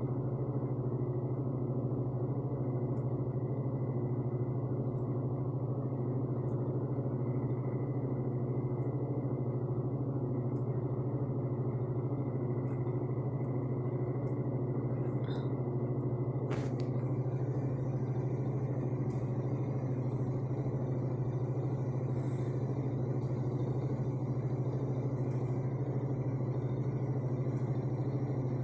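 An electric heater and a fan running together: a steady low hum with an even rush of air and a faint, steady high whine. A single sharp click sounds about 17 seconds in.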